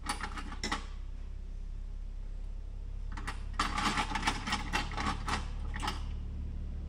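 Quick small hard clicks and rattles of small metal parts and tools being handled on a radio-control truck's drivetrain, a few at the start and a busy run from about three to six seconds in. A steady low hum sounds underneath.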